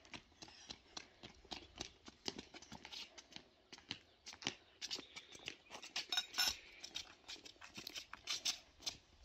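Hands working in a large bowl of food: a quick, irregular run of small clicks and rustles, busiest from about four seconds in.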